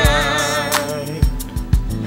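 Song playing: a sung note with vibrato held and fading over the first half, over a bass line, with drum hits in the second half.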